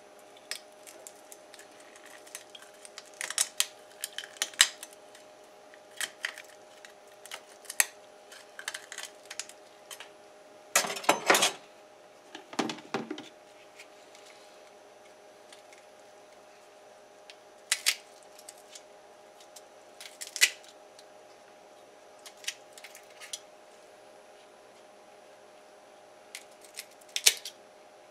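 Knife and kitchen shears working a flounder on a wooden cutting board: scattered short clicks, taps and snips, with two longer, louder rasps about eleven and thirteen seconds in. A faint steady hum runs underneath.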